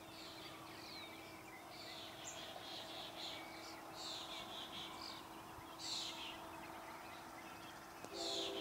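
Small birds chirping and twittering over a faint steady hum. Near the end a steady chord of several low tones starts up.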